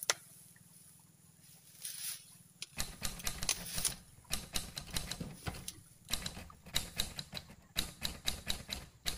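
Dry grass and twigs crackling and rustling as hands push through them at the ditch bank, a fast irregular patter of small snaps that starts a few seconds in.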